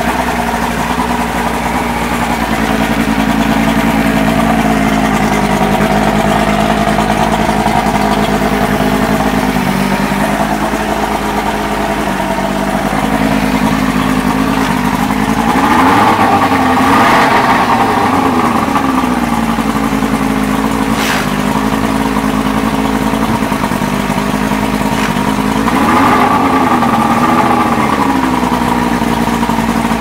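A 175 HP Evinrude V6 two-stroke outboard running steadily on a flushing hose, its throttle twice blipped up and back down, once about halfway through and again near the end.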